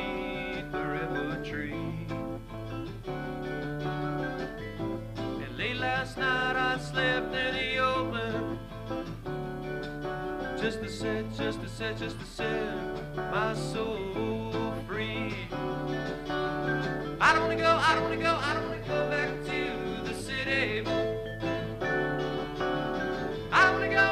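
Live country-style band music: strummed acoustic guitar over an alternating bass line, with a man singing in stretches, louder near the end.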